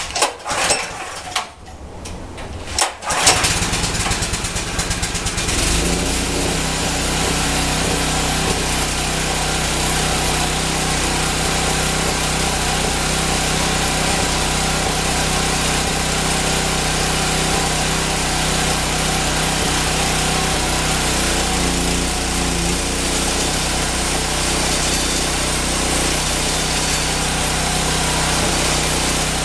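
Honda GX160 5.5 HP single-cylinder engine of a homemade sawmill: a few sharp uneven bursts in the first three seconds, then running steadily, with the sound growing fuller at about five and a half seconds.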